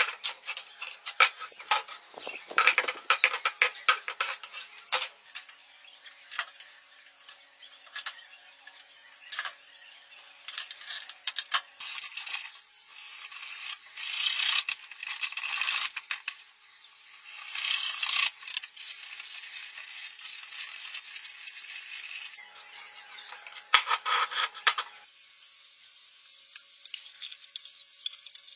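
Hard plastic stool being handled and cut with hand snips: irregular sharp clicks and knocks of plastic, with longer scraping, rasping stretches of cutting through the plastic in the middle.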